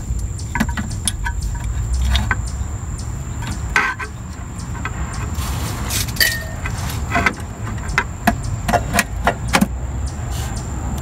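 Metal clinks and knocks of a new replacement starter motor for a 1999 Jeep Cherokee being worked by hand up into its mount on the engine, scattered throughout with a quick run of sharper clicks near the end. Under them runs a steady low rumble and a faint high whine.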